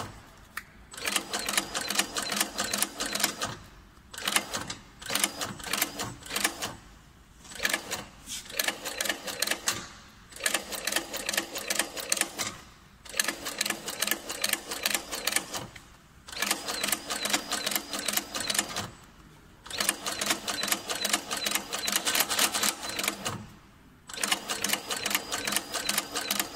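GR-205 slipper and sandal sewing machine stitching the edge of a shoe sole: a rapid, even clatter of needle strokes in runs of a few seconds, stopping briefly between runs.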